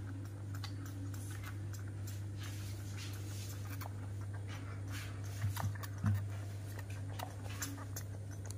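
Baby macaque sucking milk from a bottle, with soft clicks and small gulping noises, two of them louder about five and a half and six seconds in, over a steady low hum.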